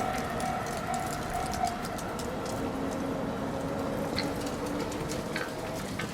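Japanese railway level-crossing warning bell ringing in even pulses, about two a second, and stopping about a second in, as the crossing clears. Steady faint tones and scattered clicks from the railway continue after it.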